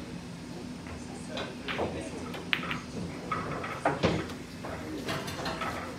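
Pool balls clicking: a few sharp knocks of cue-ball strikes and ball-on-ball hits, the loudest about four seconds in. Background voices and a steady low hum run underneath.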